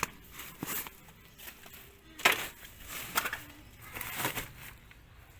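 A handful of irregular short rustling, crunching noises, the loudest a little over two seconds in.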